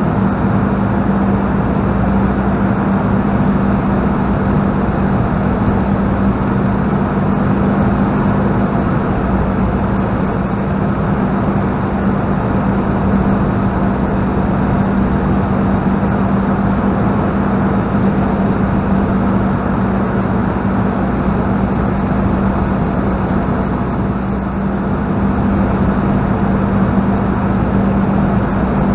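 Spitfire engine running steadily in cruising flight, heard from inside the cockpit: one constant low note over a rushing of air.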